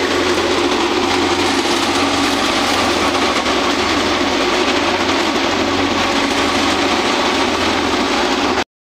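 Wheat thresher running at full speed while blowing out chaff: a loud, steady mechanical din with a constant hum underneath. It cuts off suddenly near the end.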